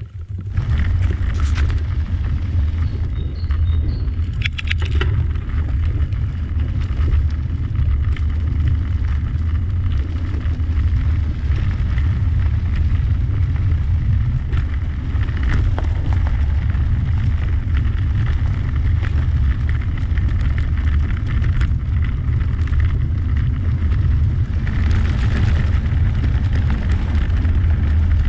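Wind buffeting the microphone of a camera riding along on a moving bicycle: a steady low rumble, with a few faint clicks in the first few seconds.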